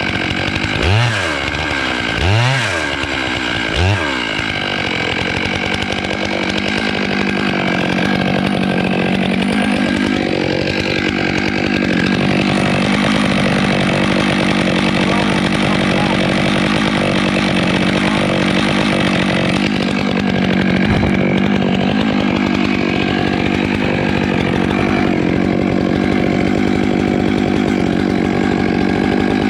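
Chainsaw cutting through melaleuca wood: three quick throttle blips in the first few seconds, then a long steady run at high revs.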